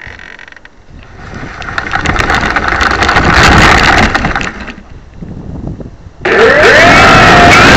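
A model aircraft engine starting up. The noise builds over a couple of seconds and falls back, then about six seconds in it jumps to full power with a whine sliding up and down in pitch.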